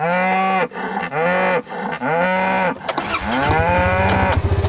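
Beef cattle mooing: three short calls in quick succession, then a longer one. About three and a half seconds in, an engine starts running underneath and keeps idling.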